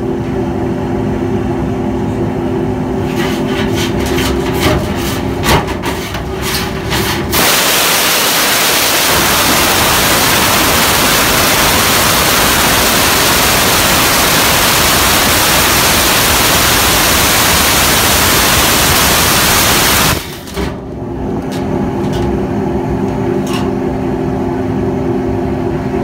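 Steady drone of a power vacuum truck pulling air through sheet-metal ductwork, with the whip ends of an air-charged dislodger ticking and slapping against the metal. About seven seconds in, a loud rush of compressed air through the dislodger hose takes over for about thirteen seconds. It then cuts off, leaving the drone and a few more taps.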